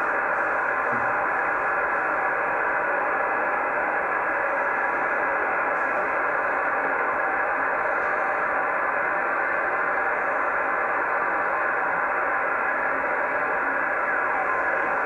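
Steady hiss of radio receiver audio from a satellite pass being fed to a telemetry decoder, cut off sharply above about 3 kHz, with an even level throughout.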